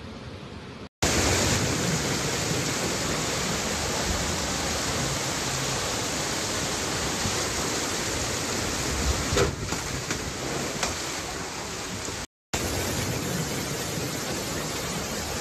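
Floodwater rushing and heavy rain falling, a loud, steady rush of noise. It drops out for an instant about a second in and again near the end, where the footage cuts between scenes of the flood.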